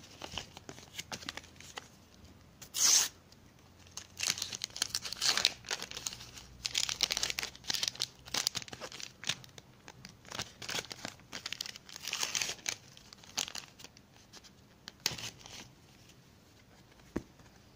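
A sticker pack's wrapper torn open and crinkled by hand, in several short bursts of tearing and rustling with pauses between; the sharpest tear comes about three seconds in.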